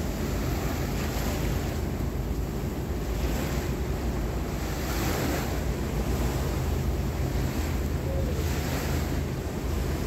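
Wind buffeting the microphone with a steady low rumble, over sea water washing, with rushing swells every second or two.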